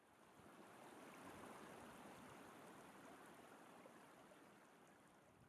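Near silence: a faint, even hiss that fades in, then fades away again within a few seconds.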